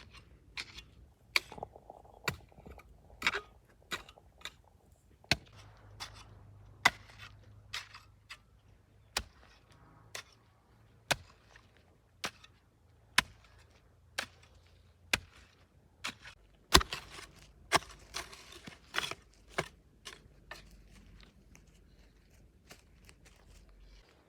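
A garden hoe chopping into soil to clear weeds: sharp strikes about once a second, with a louder, busier cluster of blows a little after the middle.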